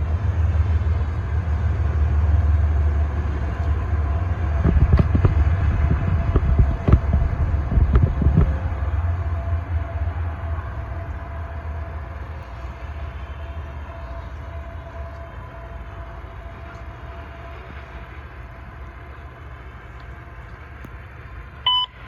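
Freight train rolling past: a heavy low rumble with sharp wheel clicks over rail joints, then a steady fade as the train moves away. Two short radio tones near the end.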